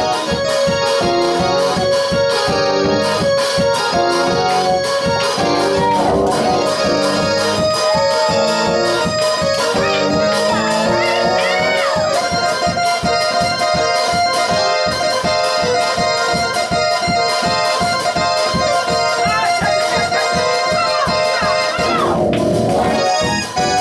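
Electronic keyboard played in an organ voice: held chords and melody over a quick, steady rhythm of short hits, with a brief break in the held notes near the end.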